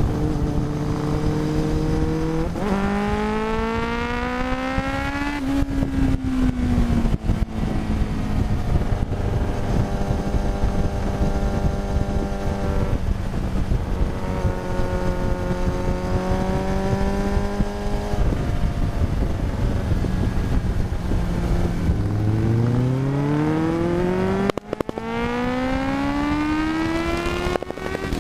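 1993 Yamaha YZF750SP inline-four engine through a full Black Widow exhaust with the EXUP valve removed. The revs climb about two seconds in, ease back, hold steady for a long stretch, then climb again near the end, with a few brief breaks in the sound.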